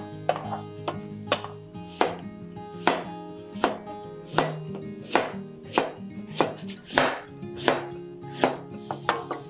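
Chef's knife slicing a sweet potato into rounds, each cut ending in a sharp knock on the cutting board, about one every three-quarters of a second. A sizzling pan comes in near the end.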